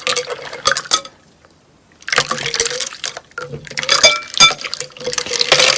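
Slime-making sounds of liquid being stirred and poured, with clicks and a few short ringing clinks of glass or hard containers about four seconds in.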